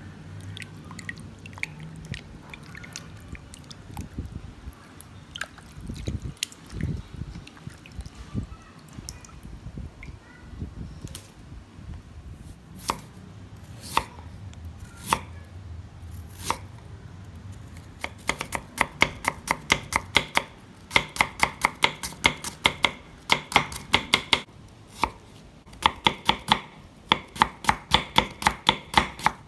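Kitchen knife chopping ginger on a wooden cutting board: a few single cuts, then, from about two-thirds in, fast runs of strokes, about four or five a second, with short pauses between runs. Before the chopping, faint splashing and handling of fish in a metal bowl of water.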